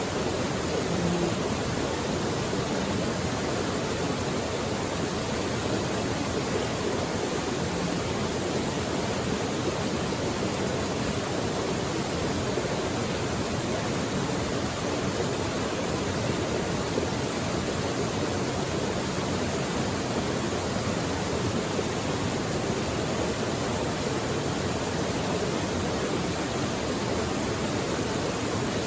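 Mountain creek rushing steadily over rocks, an even, unbroken sound of flowing water.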